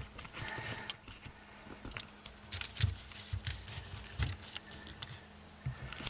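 Handling noise: irregular clicks, knocks and rustling as a handheld camera and a light are moved and repositioned.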